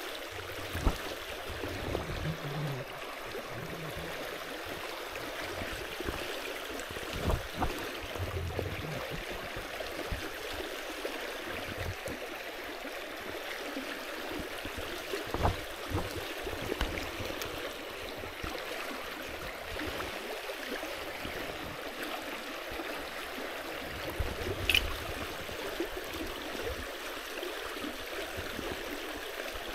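River water flowing steadily, with a few short knocks and, about three-quarters of the way through, a brief high chirp.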